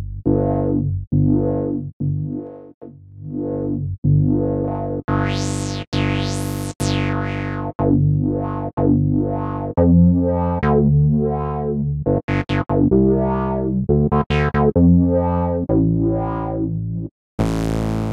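Sampled Roland Jupiter-4 synthesizer (Synthmagic/Tronsonic J4 Kontakt instrument) playing a run of short, bass-heavy notes, each with a bright attack that quickly dies away. About five to seven seconds in, the filter sweeps open and closed over several notes, and near the end a brighter, noisier patch takes over.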